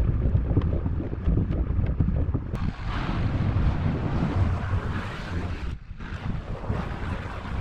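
Wind buffeting the microphone in gusts, over the low running of a pickup truck's engine as it manoeuvres to back up to the trailer.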